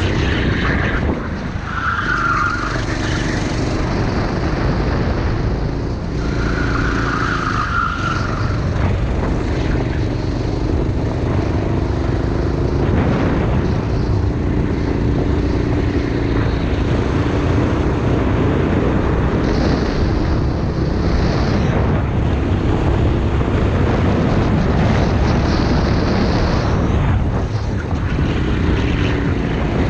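Racing kart engine running hard, its pitch rising and falling through the corners and straights. The tyres squeal briefly about two seconds in and again around seven seconds in.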